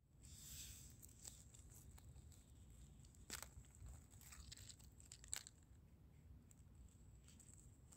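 Faint rustle of dry leaf litter as a mushroom is picked by hand, with two short sharp cracks, a little over three seconds in and again past five seconds, as the stem is worked loose from the ground.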